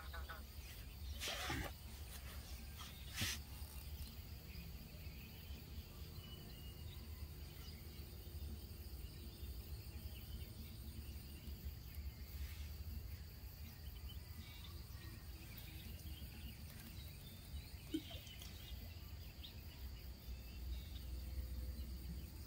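Faint, steady outdoor ambience with insects and a low rumble of wind or handling. A few brief clicks about one and a half and three seconds in, and once more near the end, as a fishing rod and spinning reel are handled.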